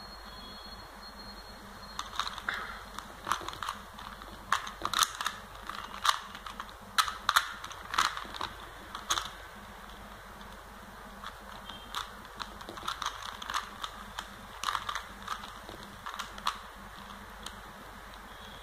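3x3 Rubik's cube layers turned by hand: irregular runs of sharp plastic clicks and clacks, starting about two seconds in, pausing for a couple of seconds midway, then resuming.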